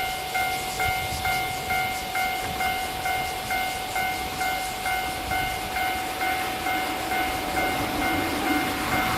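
Japanese railway level-crossing alarm ringing, its electronic bell striking evenly about twice a second. Near the end the noise of an approaching train begins to rise.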